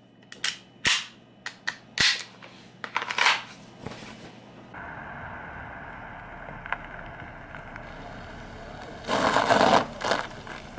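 A semi-automatic pistol being handled: a string of sharp metallic clacks and clicks from its slide and action over the first four seconds. Then a steady background hum of a car running in the street, with a louder rush about nine seconds in.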